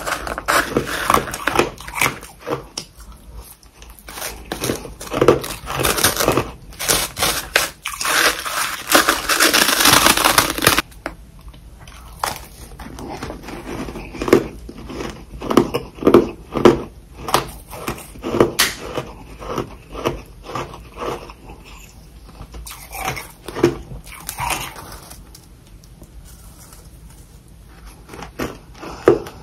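Close-up biting and chewing of hard freezer frost: dense, crackly crunching for roughly the first ten seconds, loudest near the end of that stretch, then slower separate crunching chews about once a second.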